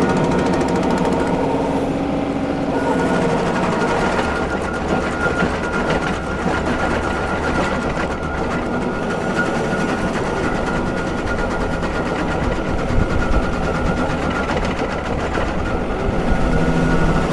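John Deere 2038R compact tractor's diesel engine running under load, driving a three-point PTO stump grinder whose cutting wheel chews into a cottonwood stump. A continuous rapid mechanical chatter with a steady high whine, the engine pitch shifting in the first few seconds.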